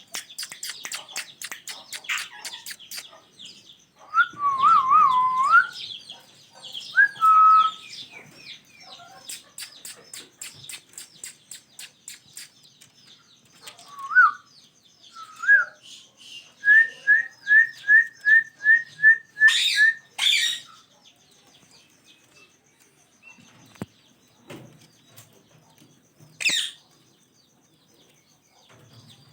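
Pair of ringneck parrots calling: rapid chattering chirps and clicks, wavering whistled calls, then a quick run of about ten identical short notes. Two loud harsh screeches stand out, one in the middle and one near the end, and the calls thin out toward the end.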